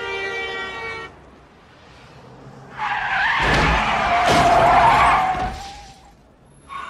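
Car tyres skid and squeal under hard braking, with two heavy thuds as a pedestrian is struck; the skid dies away about six seconds in. Before this, a film-score music cue cuts off about a second in.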